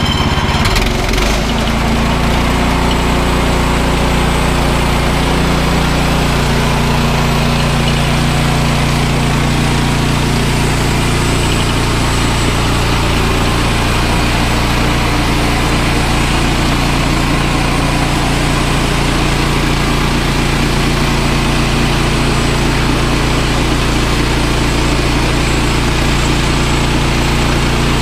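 Kohler petrol engine on a Woodland Mills HM130 bandsaw mill running at a steady speed, its note shifting briefly about a second in and then holding even.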